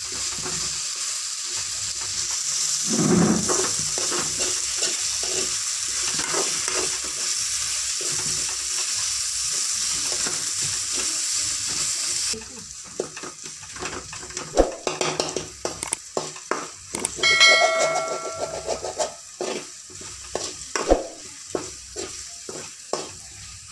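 Onion, tomato and green chilli frying in oil in a metal kadai, sizzling steadily while a spoon stirs and scrapes them round the pan. About halfway through the sizzle drops away abruptly, leaving spoon scrapes and knocks against the pan and one brief metallic ring.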